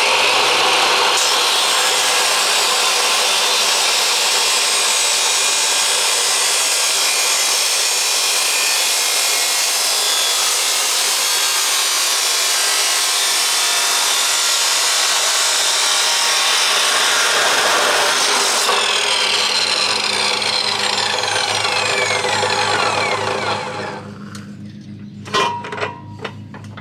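A power tool cutting steel exhaust pipe runs loudly and steadily for about twenty seconds, then its pitch falls away as it winds down and stops. A few metal clanks follow near the end.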